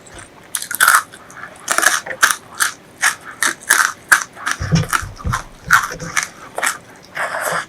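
Close-miked eating: chewing and crunching food, a quick run of sharp crunches and wet mouth clicks, a few every second.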